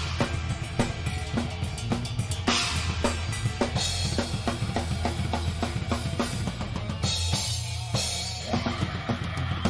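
Rock drum kit played live at a fast tempo, with rapid kick and snare hits. Crash cymbals strike at the start, about two and a half seconds in and around seven seconds in, over a steady low bass from the band.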